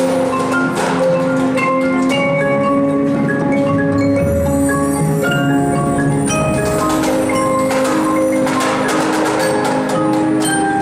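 Indoor drumline performing: the front ensemble's marimbas, vibraphones and xylophone play a melody of ringing, held notes, with sharp percussive hits over it that come more thickly near the end.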